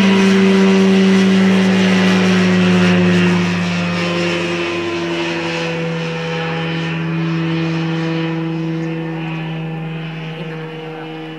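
Engine and propeller of a single-engine ultralight biplane running steadily as it flies past overhead. The pitch drops slightly about three and a half seconds in as it passes, and the sound then fades as the plane moves away.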